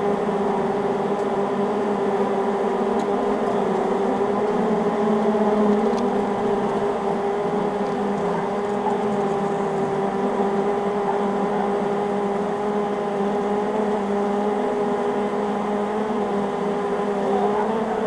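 A large swarm of honey bees clustered on a hive front, humming steadily as one low, even drone with a clear pitch.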